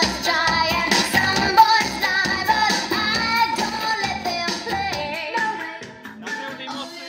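Pop song with a woman singing, played loudly over a JVC RC-656 radio cassette recorder's speakers tuned to a radio station. The music drops in level near the end.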